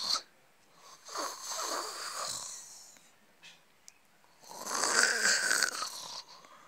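A person imitating snoring, voicing a sleeping plush-toy character: two long snores, the first about a second in and the second past the middle.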